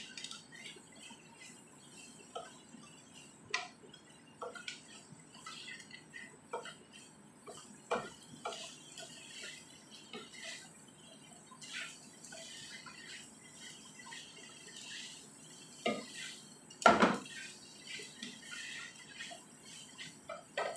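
Wooden spatula stirring shredded chicken and onions in a non-stick frying pan: scattered knocks and scrapes against the pan, with one louder knock late on.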